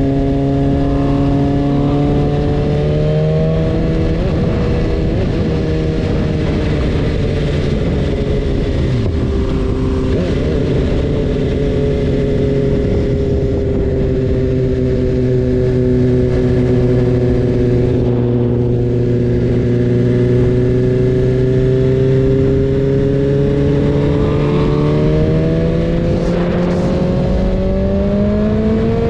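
BMW S1000RR's inline-four engine running under way at a steady speed over a constant rush of wind and road noise. Its pitch drops about three seconds in, eases slowly lower, then climbs again near the end.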